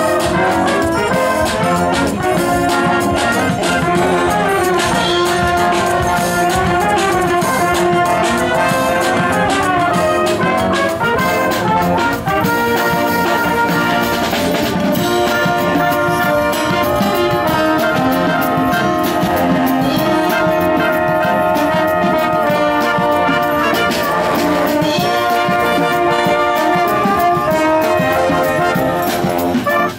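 Military brass band playing a tune live, trombones and other brass carrying the melody.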